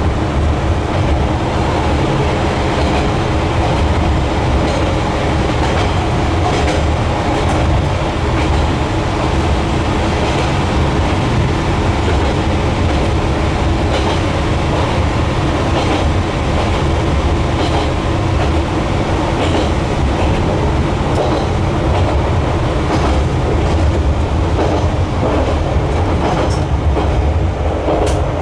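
Train running steadily along a single-track line, heard from inside the cab: a constant low rumble and hum, with scattered clicks of the wheels over the rails.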